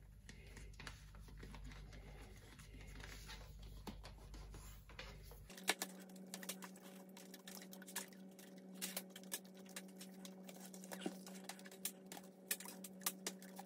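Coax cable being wound by hand around a plastic bottle to form a coil: faint rubbing and scattered light clicks, busier in the second half.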